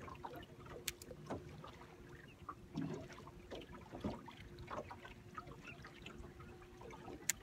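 Quiet on-water ambience aboard a small fishing boat: a faint steady motor hum with scattered light clicks and knocks from fishing tackle and the boat, and one sharp click near the end.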